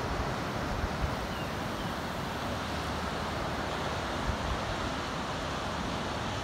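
Strong storm wind sweeping over a beach with surf breaking offshore: a steady rushing hiss.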